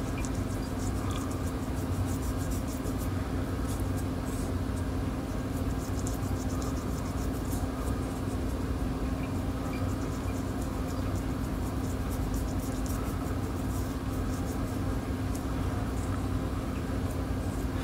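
Steady low background hum with a constant low tone, unchanging throughout, with faint scattered ticks above it.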